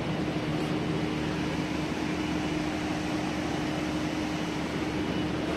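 Steady mechanical hum with one constant low tone.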